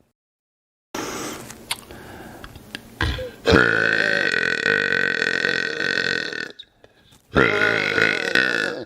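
A man burping loudly: one long burp held for about three seconds, then a shorter burp near the end. A quieter, rougher stretch with a few clicks leads into the long one.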